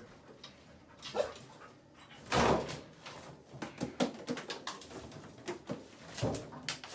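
Knocks, clatter and rustling as a hinged metal wall panel is pulled open over a hidden cavity and cardboard cigarette cartons inside are handled, with one louder short scrape about two and a half seconds in.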